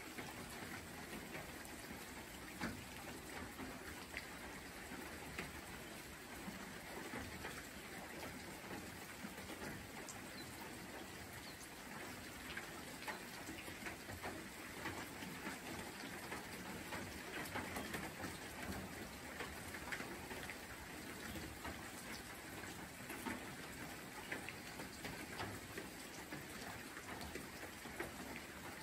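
Steady light rain falling among tree ferns: an even hiss with many separate drops ticking on the foliage.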